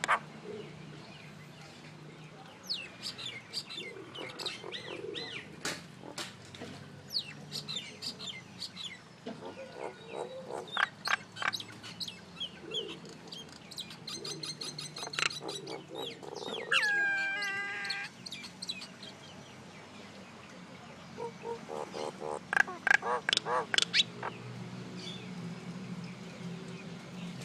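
Common myna calling: an irregular series of chirps, whistles and harsh chattering notes with short pauses between. About two-thirds through comes a held, pitched call with overtones, and near the end a quick run of sharp, clicky notes.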